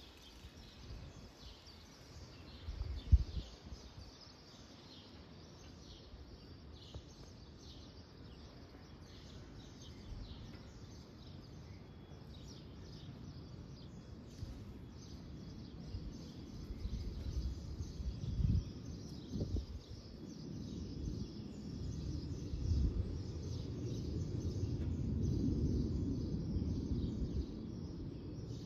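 Distant rumble of an Airbus A330 airliner's jet engines as it climbs away, swelling over the second half, with small birds chirping throughout. A sharp bump about three seconds in is the loudest moment.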